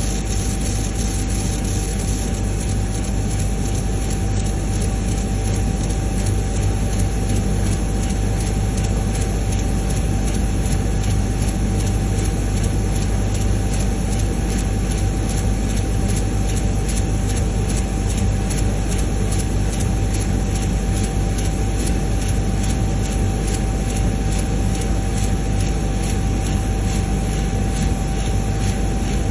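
CNC router spindle running steadily with a constant high whine while its bit cuts into coconut shell, giving an even grinding hiss over a low hum.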